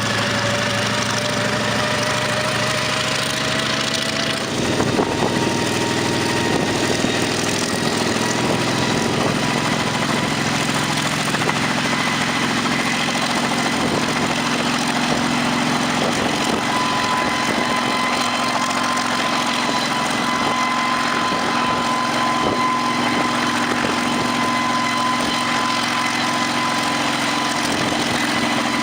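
Helicopter engine running during start-up: a whine rises in pitch over the first few seconds, the sound changes about four and a half seconds in, and it then runs steadily with a high whine over the engine's rumble.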